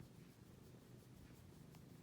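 Near silence: faint low room tone, with one faint click near the end.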